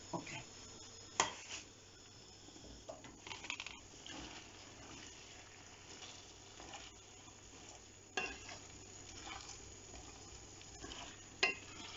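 Boiled potato gnocchi being stirred into sauce in a metal frying pan over heat, with a faint steady sizzle and a few sharp scrapes and knocks against the pan.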